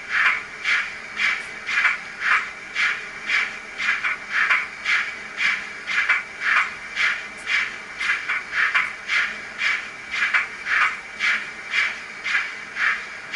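ESU LokSound V4 sound decoder in a model 57xx pannier tank, playing a 57xx steam exhaust soundscape: a steady, even chuff of a little over two beats a second as the locomotive runs on a rolling road.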